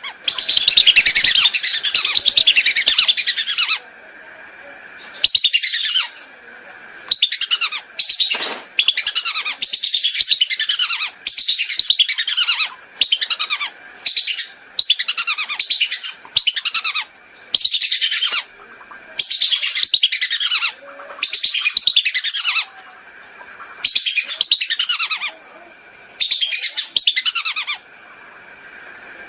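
Whistling ducks (belibis) calling as a recorded hunting lure. There are bursts of quickly repeated high whistles, each note falling in pitch, with short pauses between the bursts, over a faint steady high tone.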